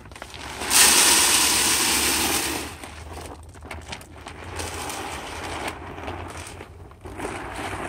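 Shelled corn poured from a bag into a plastic deer-feeder hopper: a loud rush of kernels starting just under a second in and lasting about two seconds, then a quieter, uneven trickle.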